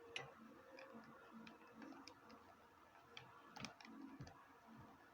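Faint, irregular plastic clicks from a PS4 controller's analog sticks being turned round in circles by thumb.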